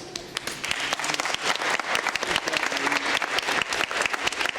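Audience applauding, many hands clapping together; the clapping starts thin and fills out within the first second.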